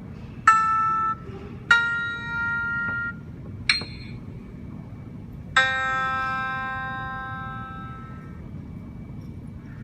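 Single electronic chime-like notes played one at a time: a short note about half a second in, a longer one near two seconds, a brief high click near four seconds, and a last lower note at about five and a half seconds that rings out and fades over nearly three seconds. A steady low hum runs underneath.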